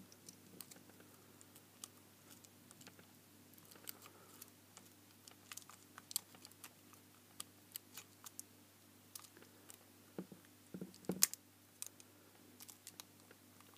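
Faint, irregular clicks and scratches of a small screwdriver tip and fingertips working at the glued plastic reflector cups and sealant of an LED spotlight. The loudest knock comes about eleven seconds in.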